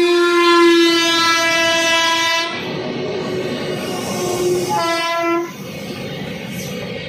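WAG-9 electric locomotive's air horn sounding a long blast that stops about two and a half seconds in, then a second, shorter blast a couple of seconds later. Under and after the horn, the loaded goods wagons rumble past on the rails.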